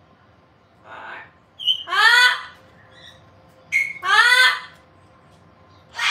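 A pet parrot calling: two loud, drawn-out calls about two seconds apart, each led by a short high chirp, with a softer rasping call about a second in.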